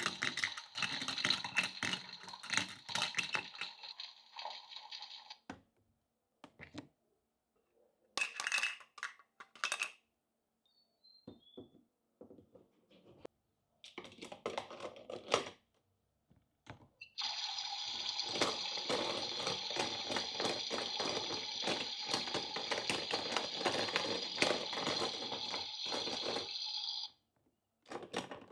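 Small plastic toy kitchen pieces being handled, with clicks and taps in short groups. About halfway through, a steady hiss with a fixed ringing tone starts and runs for about ten seconds from one of the toy's features, which has the sound of a toy tap running water.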